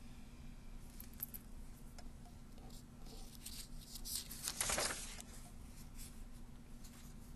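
Sheets of paper being handled and swapped on a desk: soft rustles and taps, with a louder paper swish about halfway through, over a faint steady hum.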